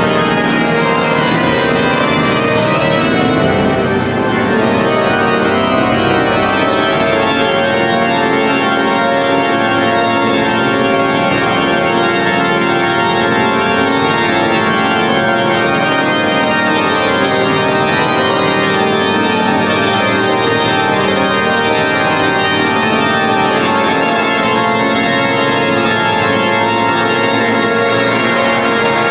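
The grand pipe organ of Notre-Dame de Paris playing loud, full, many-voiced sustained chords that shift every few seconds, heard from the floor of the cathedral nave.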